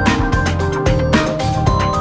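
Background music with a steady beat and a melody of short notes.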